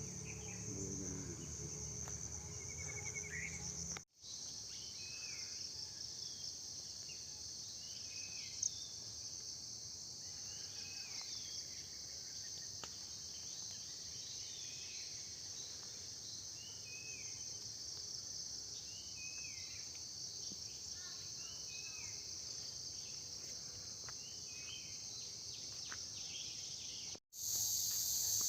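Steady high-pitched chorus of monsoon-season crickets, with short falling chirps scattered through it. The sound drops out briefly twice, about four seconds in and near the end.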